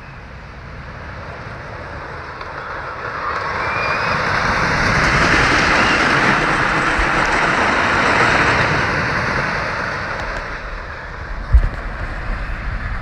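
Zippin Pippin wooden roller coaster train rumbling along its wooden track as it passes, swelling to loudest in the middle and then fading away. A single knock near the end.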